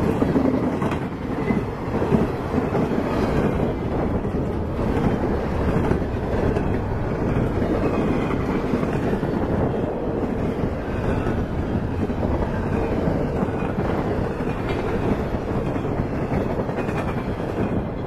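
CSX intermodal freight train's double-stack container cars and trailer flatcars rolling past, their wheels running steadily on the rails.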